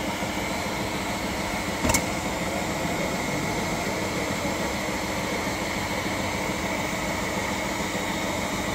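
Electric heat gun running on hot, blowing steadily, with a thin high whine over the rush of air as it heats a tapered roller bearing to expand it onto a shaft. One short sharp click about two seconds in.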